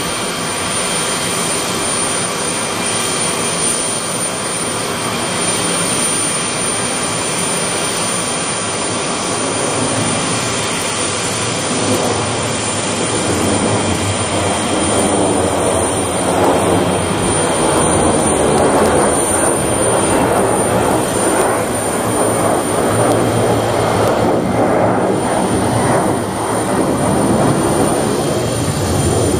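Tupolev Tu-154B-2 airliner's three Kuznetsov NK-8-2U turbofans running as the jet flies low, a continuous jet noise. It grows louder with a sweeping, whooshing quality from about halfway through.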